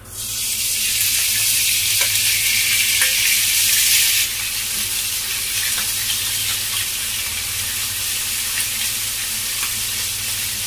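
Raw pork slices sizzling as they hit hot oil in a wok, the sizzle starting suddenly and loudest for about four seconds before settling to a steady frying hiss as the meat is stirred with chopsticks.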